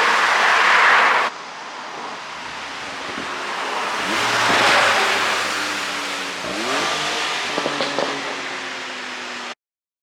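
2017 Porsche 911 Targa 4S twin-turbo flat-six revved in short blips through its exhaust, the pitch rising and falling, with a few sharp pops as the revs drop near the end. The sound drops abruptly just over a second in and cuts off suddenly near the end.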